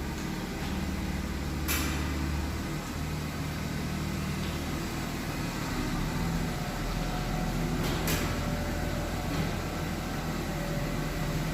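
BMW E39 front suspension giving a sharp creaking crunch twice, about two seconds in and again around eight seconds, over the low rumble of the car moving slowly. The owner traced the crunch to a front control-arm ball joint short of lubrication.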